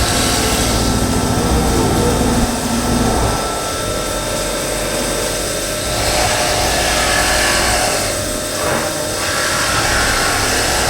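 CNC vertical machining centre running through a machining cycle: continuous mechanical noise that drops a little quieter for a couple of seconds near the middle, then comes back up.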